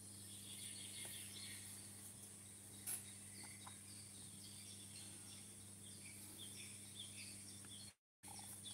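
Faint outdoor ambience: scattered distant bird chirps over a steady low hum and hiss, with one short click about three seconds in. The sound cuts out completely for a moment near the end.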